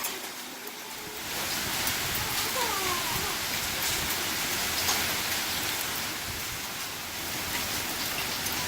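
Large hailstones and rain pelting down hard: a dense steady hiss peppered with sharp clicks of stones striking, swelling about a second in.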